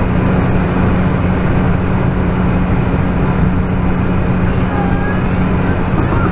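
Car cabin road noise at highway speed on wet pavement: a steady hiss of tyres and spray over a constant low engine drone.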